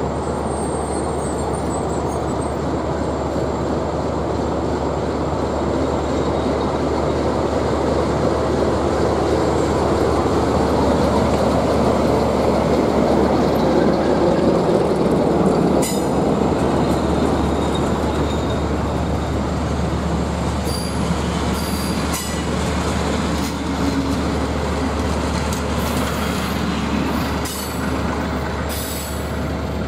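CFR class 060-DA diesel locomotive hauling a passenger train past, its engine loudest as it goes by about halfway through. Then the coaches roll past with clicks and some wheel squeal.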